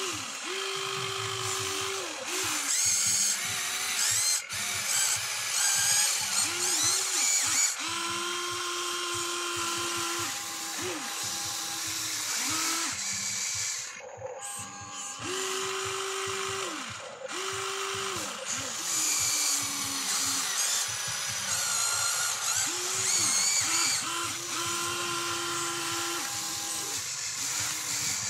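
Huina 1594 RC excavator's electric motors and gearboxes whining in repeated spurts as the boom, arm and bucket move. Each spurt rises to a steady pitch, holds, and drops away when it stops.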